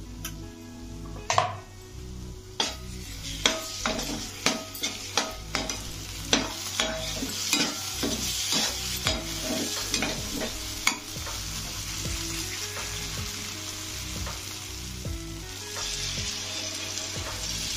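Food frying and sizzling in a pan while a spoon or spatula stirs it. For the first ten seconds or so the utensil knocks against the pan again and again, one or two knocks a second, then only the steady sizzle and stirring go on.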